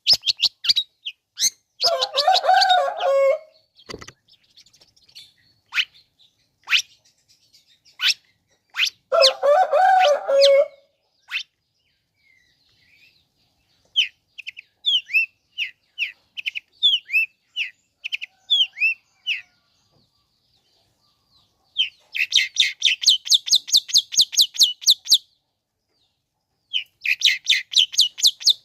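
Long-tailed shrike (cendet) singing a varied, scratchy song. Two harsh, rasping bursts come first, then a run of short, high falling chirps, and near the end two fast, rapid trills.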